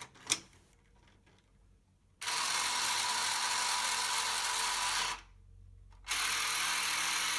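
Motorized elevator of a 1970 Hot Wheels Tune-Up Tower whirring as it lifts a toy car, running on a ribbon in place of its broken drive belt. It runs for about three seconds, stops for about a second, then starts again. A light click comes just before it starts.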